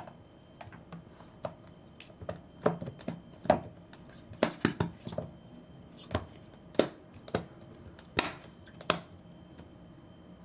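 Snap-lock lid of a plastic food container being pressed on and its clip flaps snapped shut: a run of sharp plastic clicks and knocks, the loudest about three and a half and eight seconds in.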